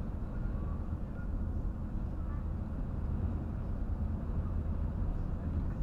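Steady low road and engine rumble heard from inside a vehicle's cab while cruising at motorway speed.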